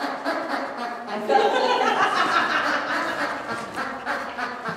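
Several people chuckling and laughing, with some indistinct talk, loudest from about a second in.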